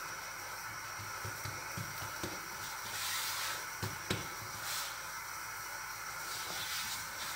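Soft thumps and rubbing of hands pressing and patting a potato-stuffed naan dough ball flat on a stone countertop, over a steady hiss. There is a short rustling hiss about three seconds in and a light knock just after four seconds.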